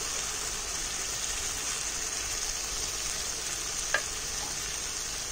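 Spice masala sizzling steadily in hot oil in a pan, just after mustard paste has been added and while it is being sautéed down. A single light click comes about four seconds in.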